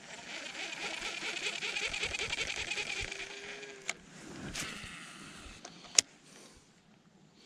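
Spinning fishing reel being cranked, a fast steady rattle lasting nearly four seconds, then a sharp click and, about two seconds later, a louder click.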